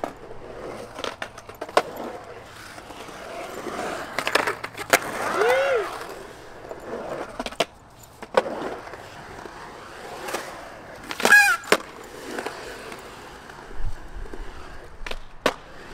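Skateboard wheels rolling and carving on a concrete bowl, broken by repeated sharp clacks of the board hitting the concrete. Two short pitched cries rise over it, about five seconds in and again near eleven seconds.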